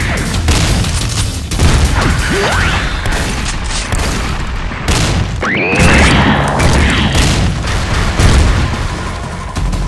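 A rapid exchange of dubbed shotgun blasts, heavy booming shots in quick succession, with a couple of sweeping whines between them. Background music with a low beat runs underneath.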